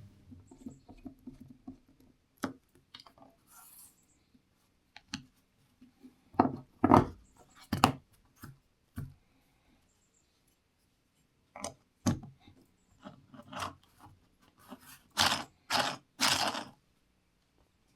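Scattered scrapes, clicks and knocks from parts being handled and fitted by hand, with a wooden blank and a 3D-printed jig going onto a bandsaw table. The sounds come in clusters, with a silent gap of a couple of seconds around the middle.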